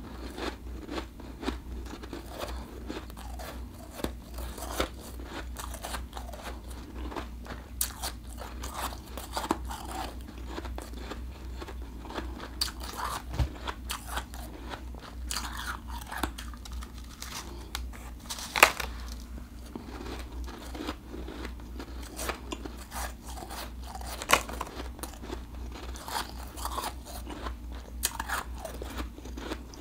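Close-miked crunching as bites are taken from a clump of refrozen blended ice and chewed: a dense run of crisp crackles and crunches, with two louder crunches in the latter part. A steady low hum lies underneath.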